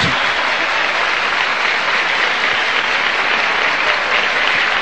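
Audience applauding, a steady wash of clapping.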